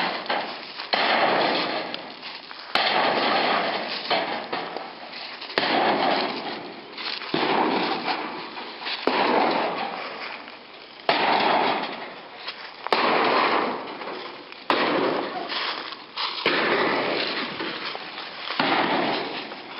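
Old storm-damaged shed being crushed: repeated crashing and cracking of breaking panels, a fresh crash every second or two, each dying away quickly.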